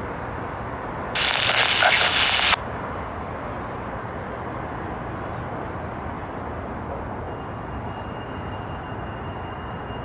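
Steady low rumble of CSX diesel freight locomotives approaching slowly. About a second in, a scanner radio breaks in with a burst of transmission for about a second and a half.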